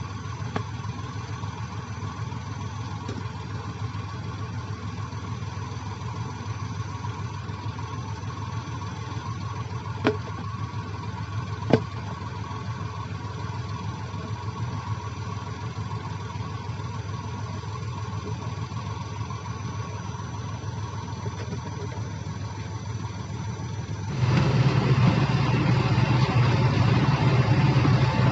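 Heavy earthmoving machine's diesel engine running steadily, with two short sharp clicks about ten and twelve seconds in; the engine gets clearly louder about 24 seconds in and stays there.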